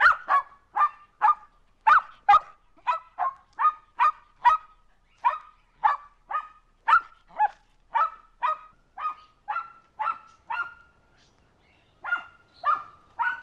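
Squeaky toy ball squeezed over and over in a dog's jaws: a quick, even run of short, high squeaks, about two to three a second, with a brief pause shortly before the end.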